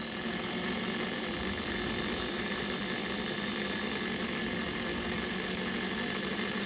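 Small electric motor whirring steadily at one even pitch as it drives the Speedy Spooler, winding typewriter ribbon onto a reel at a moderate speed.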